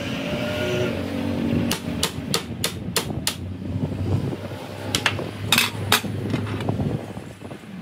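Sharp metal-on-metal knocks at a lathe's three-jaw chuck as a steel axle piece is set and seated in it: a quick run of about six knocks, then a few more later.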